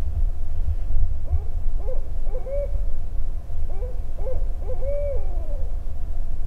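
Barred owl hooting two phrases of rising and falling notes, the second ending in a longer drawn-out hoot that falls away, with wind rumbling on the microphone throughout.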